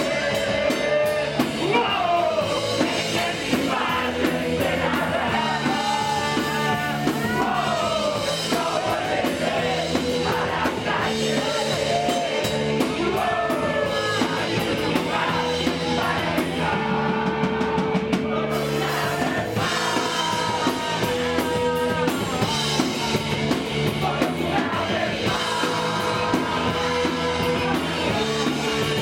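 Punk rock band playing live: two voices singing and shouting into one microphone over electric guitar and a drum kit.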